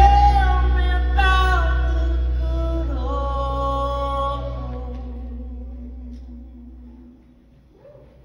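Live band ending a song: sung final notes over a held chord with strong bass, the whole sound fading away over about seven seconds.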